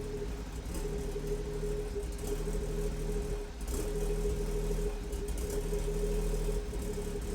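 BMW M240i's B58 turbocharged straight-six idling with a catless downpipe, its note swelling and dipping unevenly instead of holding steady: the rough idle the owner is trying to diagnose after the downpipe install. A steady whine sits above the exhaust note throughout.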